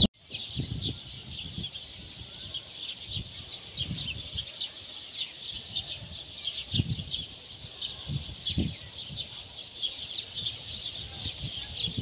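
A dense chorus of small songbirds chirping: many quick high chirps a second, overlapping, with no pause. Occasional low thumps sound under them.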